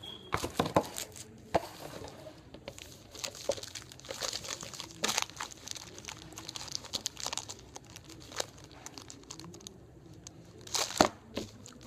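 Foil trading-card pack wrappers crinkling and crackling as they are handled and pressed against a table, with a louder crackle near the end.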